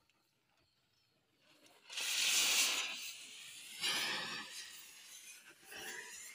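Loud hissing in three surges: a long one starting about two seconds in, then shorter ones near four and six seconds.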